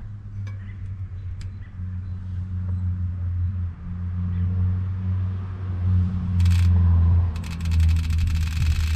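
Small clicks of the bicycle chain being handled. About six and a half seconds in there is a short sharp rasp, and from about seven and a half seconds a fast, even ratcheting buzz begins as the Industry Nine rear freehub's pawls click while the drivetrain is turned.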